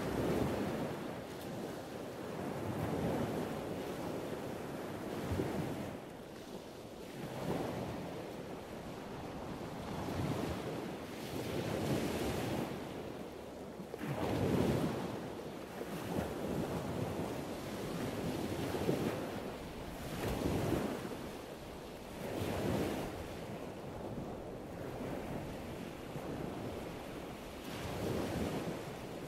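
Ocean waves washing in surges, swelling and easing every two to three seconds.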